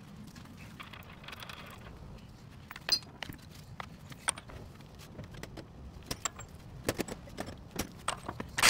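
Light metallic clinks and clicks of the axle nut and small tools being handled at the front wheel hub as the nut is threaded onto the new CV axle's stub shaft. There is a sharper click about three seconds in, a run of clicks near the end, and the loudest clatter right at the end.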